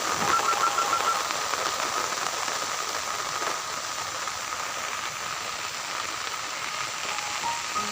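Heavy rain falling on a lake's surface, a steady hiss.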